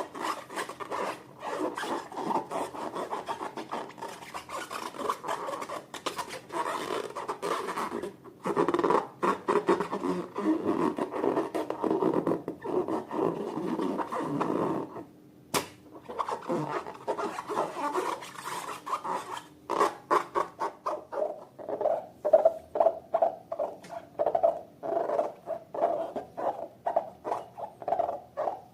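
Slime being mixed and worked by hand: continuous sticky rubbing and scraping, then, after a short pause, a steady run of short squishing strokes, two or three a second.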